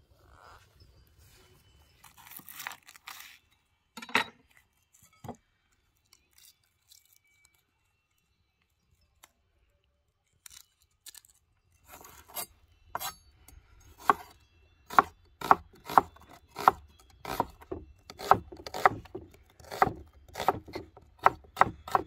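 Kitchen knife slicing a red onion on a wooden cutting board. Steady cuts come about two a second, each ending in a knock on the board, starting about halfway through.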